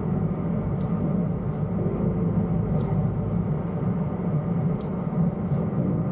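Scania V8 truck hauling a heavy load, heard from inside the cab: a steady low engine and road drone, with light, irregular rattling clicks in the cab.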